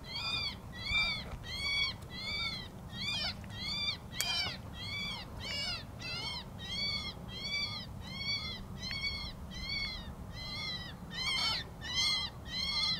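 FoxPro X24 electronic predator caller playing a call on a loop: the same high squeal over and over, each rising then falling in pitch, about one and a half a second.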